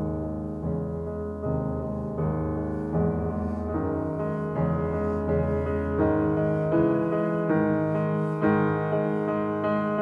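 Slow, gentle background piano music, with a new chord struck about every three-quarters of a second over held bass notes.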